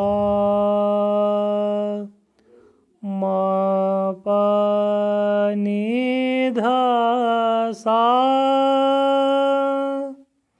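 A man singing unaccompanied held notes of Raag Kamod: each note sustained for a second or two, joined by slides and a quick wavering ornament, with short breaks for breath between phrases.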